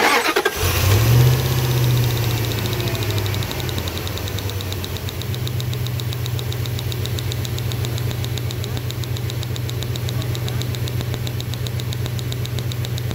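Dodge engine starting and catching almost at once, running a little higher for the first few seconds, then settling to a steady idle. Over it comes a fast, even ticking, the spark snapping inside an in-line coil-on-plug spark tester on one cylinder, a sign that the coil is firing.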